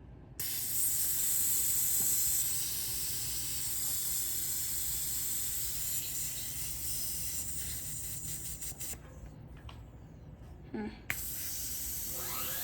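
Pressurised air hissing out of a bicycle tyre valve as the tyre is let down. It starts suddenly, stops for a moment about nine seconds in, then hisses again.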